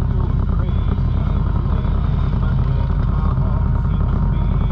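ATV engine running steadily while riding a gravel trail, a dense low-pitched drone with no let-up.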